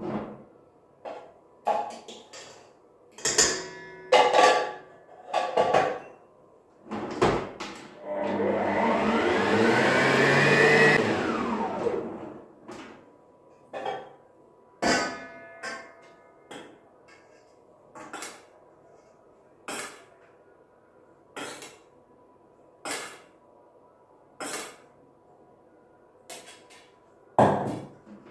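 Stand mixer motor run briefly, speeding up over a few seconds and then winding down, to stir cocoa into cake batter. Around it are clinks and knocks of a spoon and the steel bowl. In the second half come sharp taps about every second and a half.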